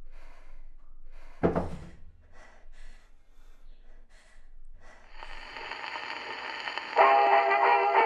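A single sudden heavy thump about a second and a half in, then music fades in and swells louder near the end.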